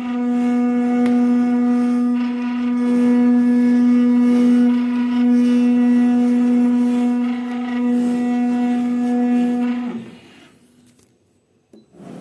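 Digital cutting machine running while cutting PET felt board: a loud, steady, one-pitch hum with overtones that cuts off suddenly about ten seconds in.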